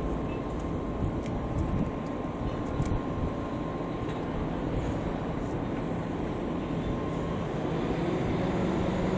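Steady low mechanical rumble of distant machinery, with a faint steady tone that fades out about seven seconds in and a low hum that grows slightly near the end.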